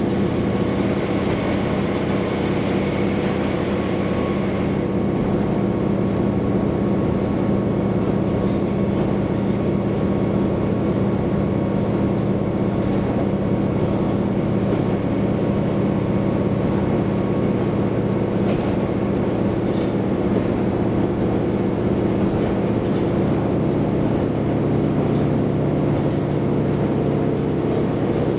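Diesel railcar running along the line, heard from on board: a steady engine drone under wheel and track noise. The engine note changes near the end.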